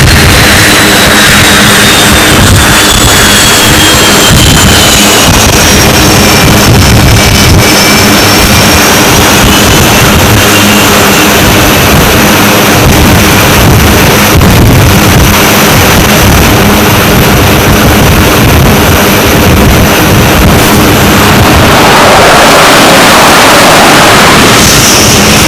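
F/A-18 fighter jet engines running loudly and steadily on an aircraft carrier's flight deck, a high whine over the jet noise falling slowly in pitch over the first several seconds.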